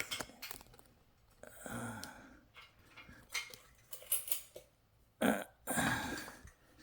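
A man's effortful grunts and breaths as he strains to lift a ceiling fan up to its mount, twice, with a few light clicks and knocks from handling it in between.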